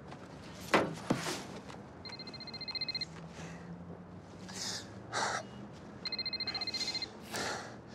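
Mobile phone ringing with a trilling electronic ring, two rings about four seconds apart, each lasting about a second. A little after the start, two sharp knocks are the loudest sounds.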